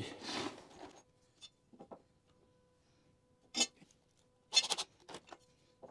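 Short, sharp knocks and clicks of lumber and tools being handled: one about three and a half seconds in and a quick cluster of several a second later, with a faint steady hum underneath.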